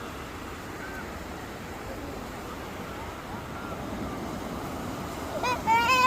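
Ocean surf washing steadily onto a sandy beach. Near the end a young child gives a high-pitched squeal that rises and wavers.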